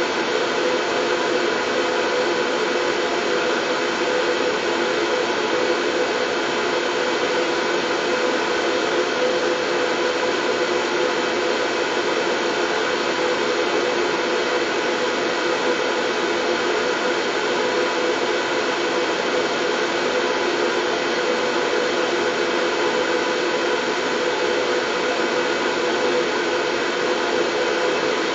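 Steady, unchanging white noise, a constant hiss with a faint even hum in it, played to lull a colicky baby to sleep.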